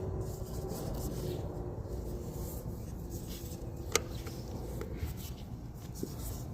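Light rubbing and handling as pipe thread tape is wound onto the threads of an IBC tote fitting, over a low rumble, with one sharp click about four seconds in.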